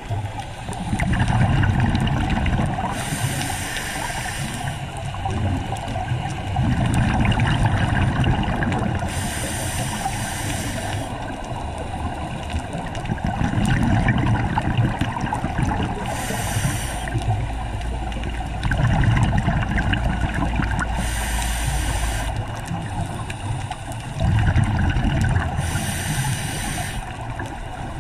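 Scuba diver breathing through a regulator underwater: a hiss on each inhale and a burst of bubbling exhaust on each exhale, about five breaths at an even pace.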